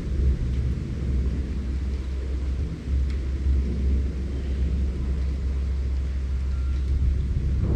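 Strong wind in a forest, heard as a steady deep rumble with gusts buffeting the microphone; it dips briefly about three seconds in, then picks up again.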